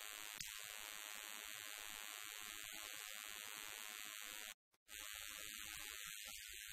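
Faint steady hiss of background room tone, with faint indistinct low sound beneath, broken by a brief dropout to silence about four and a half seconds in.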